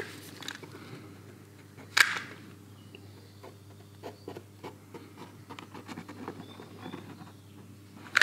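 Plastic mixing-nozzle tip of a two-part adhesive cartridge scratching and dabbing along a crack in a plastic bumper, giving many faint ticks and scrapes, with one sharper click about two seconds in.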